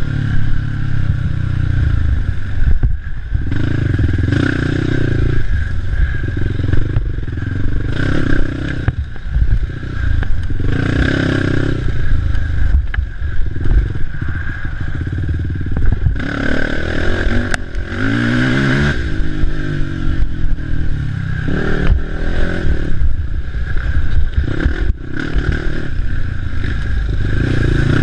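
Race quad (ATV) engine revving up and backing off over and over as it is ridden hard along a cross-country race trail, with a long rise in revs near the middle. Knocks and rattles break in where the machine hits rough ground.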